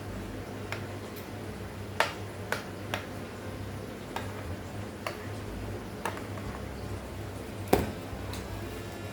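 Scattered light clicks and taps, about eight of them at irregular intervals, the loudest near the end, over a steady low hum.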